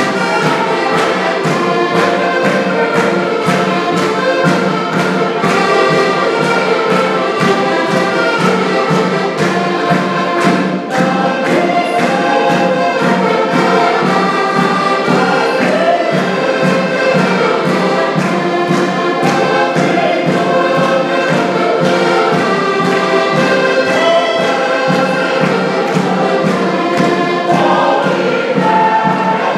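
Live Portuguese folk music from several accordions playing together over a steady beat on a large bass drum (bombo), with group singing and hand clapping along.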